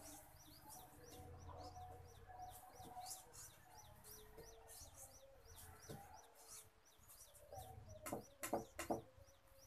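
Faint chicken clucking with many short, high, falling chirps repeating throughout, and a quick cluster of knocks about eight seconds in.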